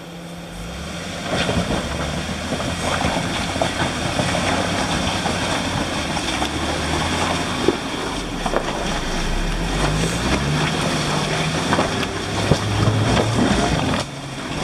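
Jeep Wrangler JK engine revving under load in low range as it crawls up a rocky climb, its pitch rising and falling, with sharp knocks of tires and rock. It gets louder about a second in and drops back just before the end.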